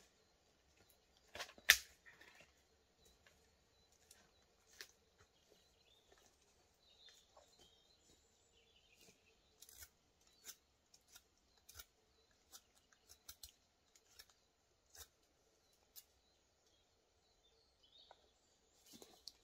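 Sparse, faint clicks and taps at irregular intervals, with one sharp, louder click just under two seconds in.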